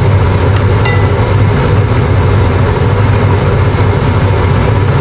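A steady, loud low hum with a rushing noise over it, unchanging throughout, with a faint light click about a second in.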